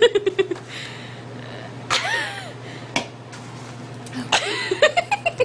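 A woman coughing, gasping and sputtering, her mouth burning from hot cinnamon candy. There is a rapid run of short stuttering bursts at the start, a brief wavering vocal cry about two seconds in, and another cluster of sputters and vocal sounds near the end, over a steady low hum.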